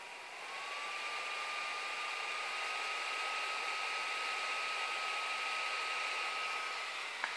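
Clevo P170EM laptop's cooling fan spinning up under full Prime95 CPU load: a steady whir whose whine rises slightly in pitch and grows louder about half a second in, then holds. A brief click near the end.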